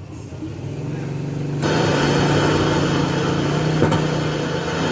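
Sound from a Sony MHC-VX500 mini hi-fi's FM tuner through its connected speaker, a rushing noise with a steady low hum. It builds slowly, then jumps suddenly louder with a click about a second and a half in as the intermittent speaker relay makes contact, with another click near the end.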